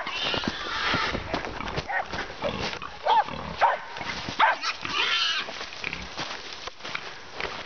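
A fox terrier barking in short, sharp yaps, several in the middle, at a wild boar that grunts and squeals.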